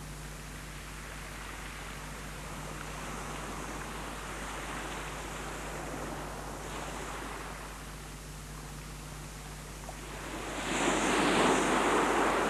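Sea waves washing onto the shore, with one wave breaking louder near the end. A steady low hum runs underneath.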